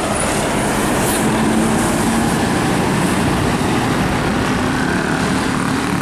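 Large tour coach driving past close by, its diesel engine and tyres making a loud, steady road noise with a low hum.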